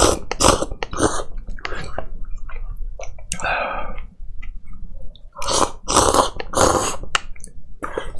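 A person slurping instant cup noodles off chopsticks: several loud, short slurps in quick runs, with chewing and small mouth sounds between.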